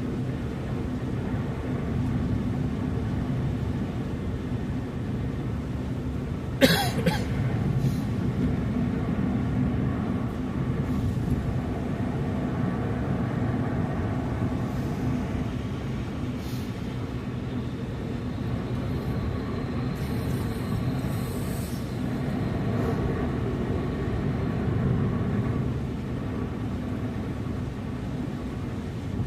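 Steady low rumble of a car's engine and tyres heard from inside the cabin while driving. A single sharp knock comes about seven seconds in, and a short hiss a little past two-thirds of the way through.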